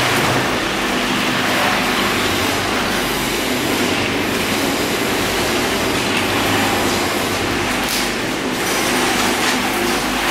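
Gas-heated rotary peanut roasting machine running: a steady mechanical hum under a loud, even hiss while raw peanuts are loaded into its feed chute.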